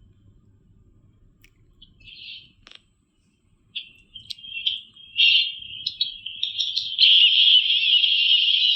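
Group of children cheering with high-pitched screams: a few scattered squeals from about two seconds in, building about seven seconds in into a continuous loud crowd of screaming kids.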